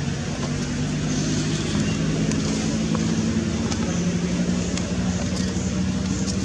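A motor engine running steadily nearby, its low hum shifting slightly in pitch, over a constant background noise.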